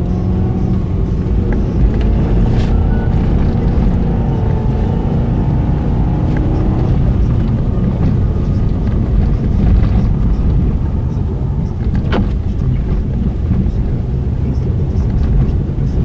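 Car interior noise while driving on a snow-covered road: a steady low rumble of engine and tyres on packed snow, with one sharp knock about twelve seconds in.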